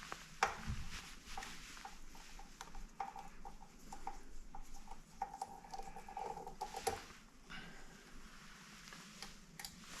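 Small clicks and scrapes of a screwdriver working the screws out of a KitchenAid stand mixer's gear housing.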